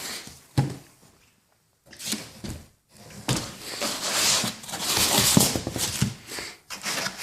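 Packaging being handled as a boxed exhaust is unpacked: a sharp knock, a short pause, then several seconds of irregular rustling and knocking of the box and wrapping.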